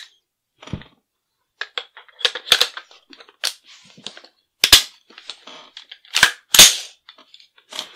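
Metal parts of a Caracal CAR816 A2 rifle clicking and clacking into place as it is put back together by hand: about eight separate sharp clacks, the loudest about five and six and a half seconds in.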